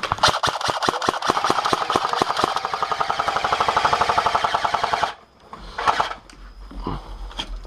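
Airsoft gun firing one long full-auto burst, a rapid, even stream of shots that stops about five seconds in, followed by a few scattered shots and knocks.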